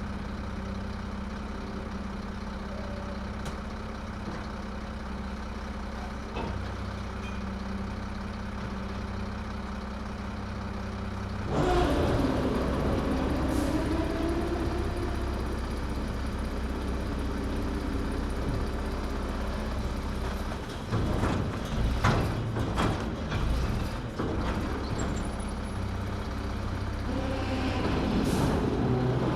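Garbage truck engine idling steadily, then suddenly revving up and running louder, with a whine that glides in pitch. Later come several sharp bangs and clatters, typical of a bin being emptied into the truck.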